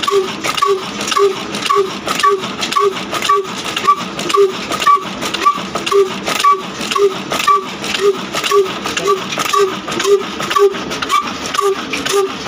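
Old Ruston Hornsby diesel engine running slowly and steadily, its valve gear clattering in an even beat of about two strokes a second.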